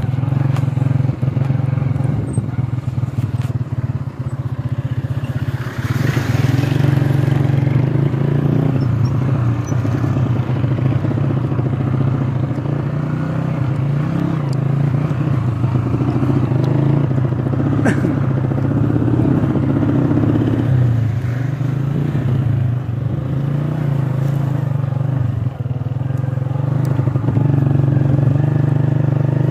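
A motor vehicle's engine running steadily, a loud, even, low drone, with a short hiss about six seconds in and a sharp click later on.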